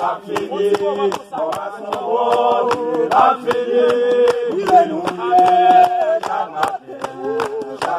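A group of voices singing a worship song together, held notes rising and falling, over a steady rhythm of hand claps.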